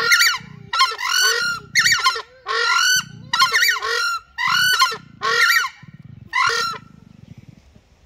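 A pair of southern screamers (crested screamers) giving their loud, high-pitched honking territory call, about ten calls in quick series with lower notes in the gaps, stopping near the end.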